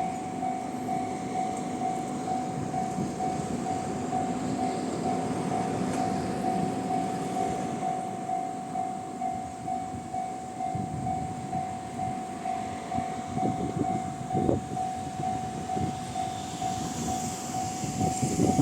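Level-crossing electronic warning alarm sounding a steady, pulsing tone, the type heard at JR East crossings in the Tohoku region, over the rumble of a JR Shikoku 7200 series electric train running through the crossing on the rails. A few louder knocks come near the end.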